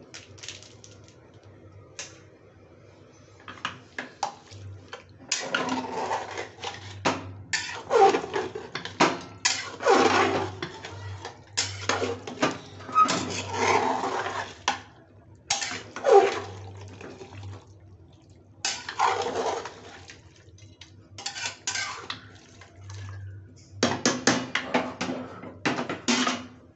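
A metal spoon stirring and scraping marinated mutton pieces around inside an aluminium pressure cooker, in irregular spells of wet scraping and clinking with short pauses between them.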